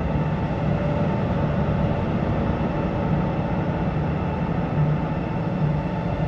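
Soma Labs Lyra-8 analog drone synthesizer playing a dense, steady, noisy drone with a low hum and a few held tones above it, thickened with added reverb.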